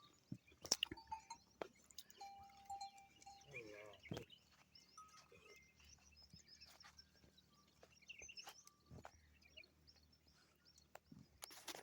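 Faint goat bleat, one wavering call about four seconds in, among scattered faint chirps and clicks.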